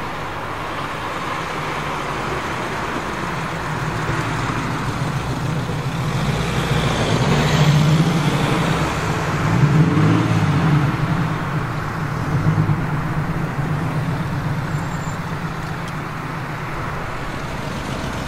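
TVR S1 sports car's exhaust note, its engine running and building up as the car pulls away, loudest about halfway through, over street traffic.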